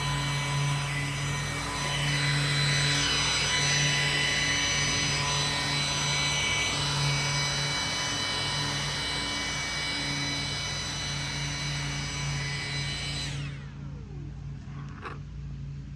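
Milwaukee Quik-Lok blower attachment on a cordless battery powerhead running at speed: a high fan whine over a rush of air. About thirteen seconds in it is released and winds down with a falling whine, leaving a low hum.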